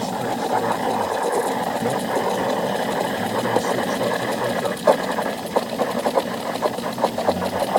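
Steam spout of a De'Longhi espresso machine steaming milk in a jug: a steady noise with crackling as the steam bubbles into the milk, the crackles growing more frequent from about five seconds in.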